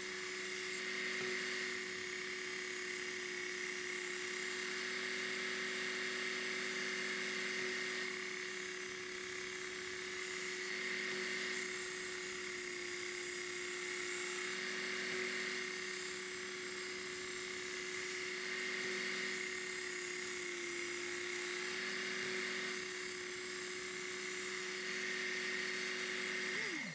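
Work Sharp Ken Onion Elite belt sharpener running with a steady motor whine while a steel knife blade is drawn across the abrasive belt in repeated passes, each adding a grinding hiss for a second or two. The blade is being ground to a new 20-degree bevel and has not yet raised a burr. Near the end the motor is switched off and winds down.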